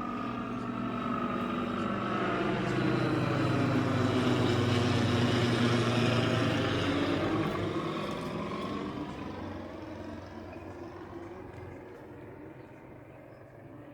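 A light single-engine propeller aircraft flying low overhead. The engine sound grows to its loudest about halfway through, then fades away as the pitch drops in a slow Doppler slide.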